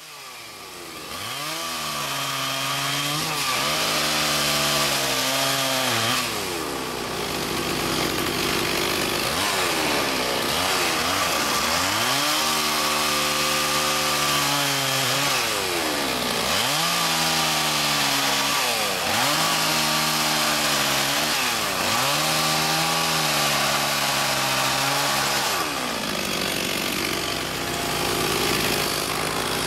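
Stihl two-stroke chainsaw bucking logs, its engine note dropping as the chain loads up in each cut and climbing back as it clears, over and over.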